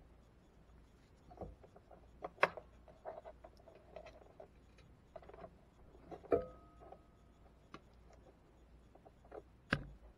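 Handling noise of braided copper ground wire being fed into the inverter's plastic wiring box: scattered light clicks and taps with soft rustling. One tap about six seconds in rings briefly.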